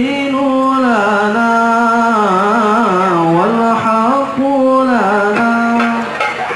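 A solo male voice singing a sholawat (Islamic devotional song) without accompaniment, holding long notes and winding through ornamented melodic runs, as the opening line before the frame drums enter.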